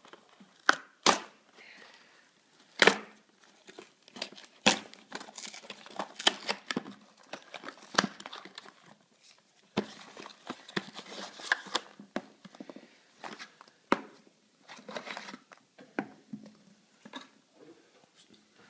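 Cardboard carton of a Kinder Surprise three-pack being torn open by hand. Sharp snaps of the card, the loudest in the first few seconds, are mixed with rustling and crinkling as the foil-wrapped eggs are pulled out.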